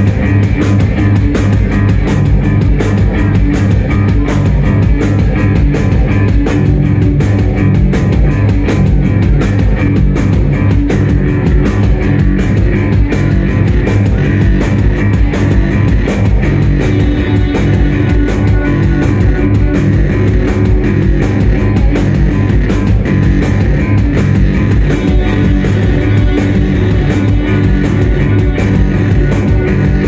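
Loud live band music on synthesizers and guitar: a fast, even pulse over a held low drone.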